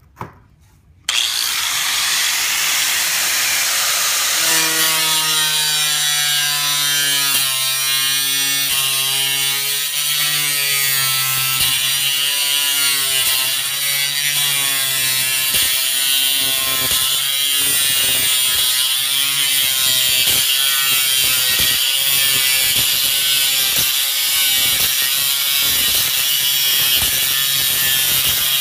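Makita cutoff grinder switched on about a second in, then cutting through perforated stamped steel sheet with a steady loud grind; its pitch wavers as the disc works through the metal.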